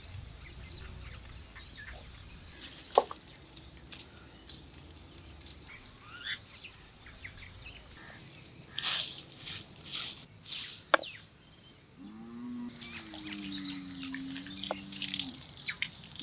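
Birds chirping in rural outdoor quiet, with a few sharp clicks and scraping sounds. Near the end comes a low, drawn-out call lasting about three seconds.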